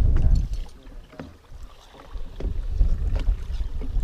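Wind buffeting the microphone in low, rumbling gusts: strong at first, easing for a second or two, then picking up again. A few faint ticks sound over it.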